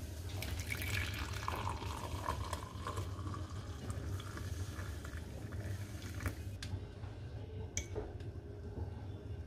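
Liquid poured into a container, its pitch rising as the container fills, followed by a few sharp clicks or knocks.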